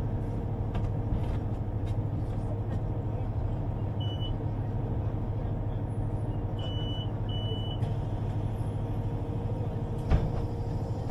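Underground train running with a steady low rumble. A few short high beeps sound midway, and a single thump comes near the end.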